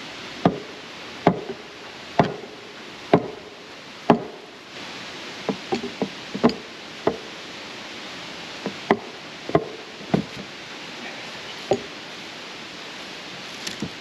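Sledgehammer striking a heavy timber bridge plank: hard knocks with a short woody ring, about one a second for the first four seconds, then a scatter of lighter, irregular knocks.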